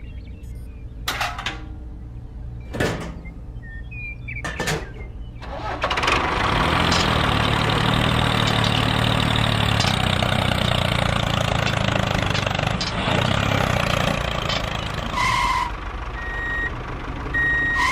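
A few clicks and knocks, then about six seconds in an engine starts running steadily. Two short high beeps come near the end.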